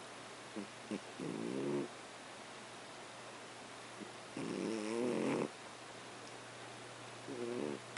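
Domestic cat snoring in its sleep: three snores a few seconds apart, each under a second long with a wavering pitch, and two brief short sounds before the first.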